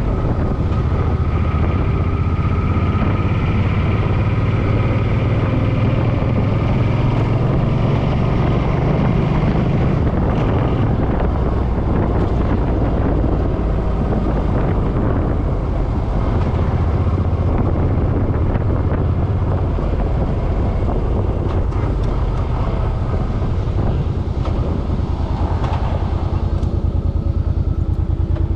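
Suzuki M50 motorcycle's V-twin engine running steadily while riding, with wind noise on the microphone. The engine note shifts a little along the way.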